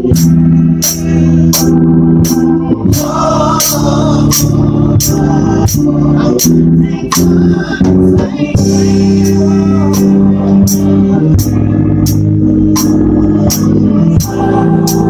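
Live gospel music: a drum kit keeping a steady beat, with cymbal and snare hits about twice a second over held organ chords. Voices sing at times, most clearly about three seconds in.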